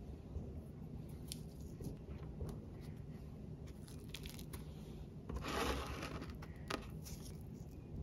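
Quiet kitchen handling noises over a low steady hum: light taps and clicks, then a brief noisy rustle about five and a half seconds in, followed by a sharp click.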